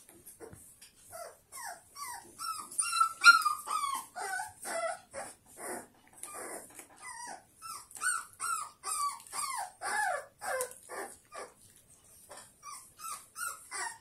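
Four-week-old American Bully puppy whimpering and crying, a steady string of short high-pitched cries, about two or three a second, most sliding down in pitch, loudest about three seconds in.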